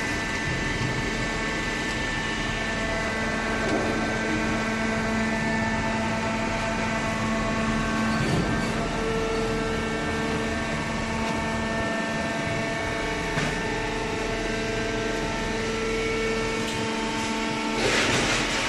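Hydraulic horizontal cardboard baler running: a steady mechanical hum with several held tones, from its motor and hydraulic pump, and a short hissing burst near the end.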